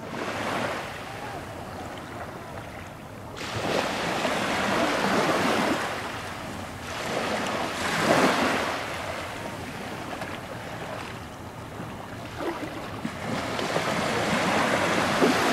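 Small waves washing onto a beach, the surf swelling and falling back four times.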